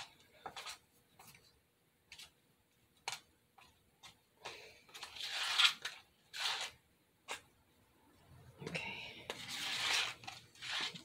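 Metal spoon stirring thick spackle paste in a plastic bowl: scattered clicks and scrapes of the spoon against the bowl as more flour is worked in to stiffen the mix.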